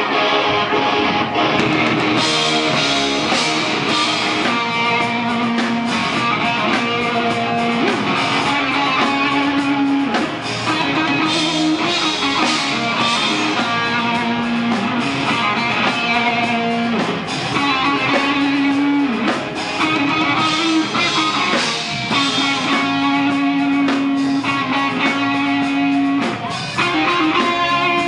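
Live rock band playing: electric guitars, bass guitar and drums, with a riff of long held notes that switches between two pitches every couple of seconds.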